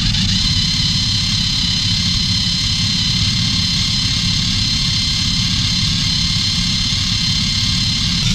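Small electric RC car running on a roller dyno: a steady high motor-and-gear whine with a low rumble from the rear tyres driving the roller.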